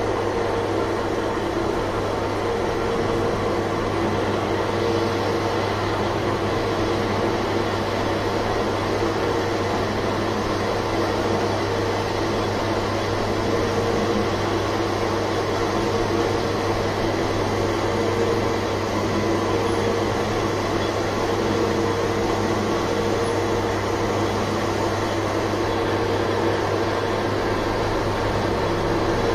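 Manual metal lathe running, its motor and gearing giving a steady hum with a few constant tones while the chuck spins a metal workpiece against the turning tool.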